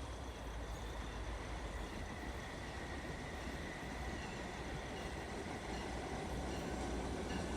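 Commuter rail train approaching the station, its low rumble slowly growing louder, with a faint steady high-pitched whine over it.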